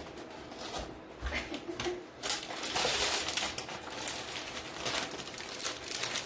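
Clear plastic bags of diamond-painting drills being handled and set down: crinkling plastic with small clicks and rattles, loudest about two and a half to three and a half seconds in.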